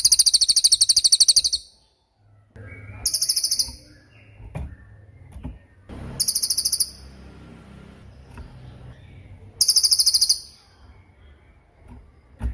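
Cililin songbird giving very high, sharp, rapid trills in four bursts roughly three seconds apart, the first about a second and a half long and the others shorter.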